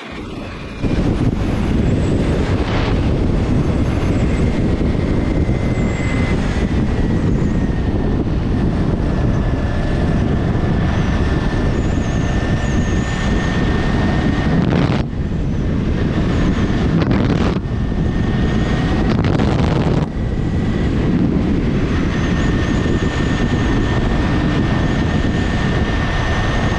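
Motorcycle riding along a road: a steady rush of wind and road noise with the engine running underneath and a faint high whine. The noise briefly drops off a few times around the middle.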